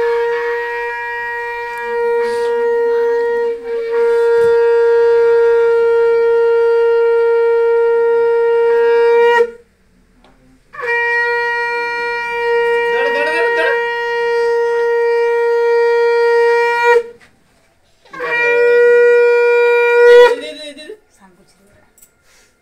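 Conch shell (shankha) blown in three long, steady blasts: the first and longest about nine seconds, a second of about six seconds, and a short third one, each a single held note with brief breaks between them. It is the conch sounded as an auspicious call during a Hindu rite.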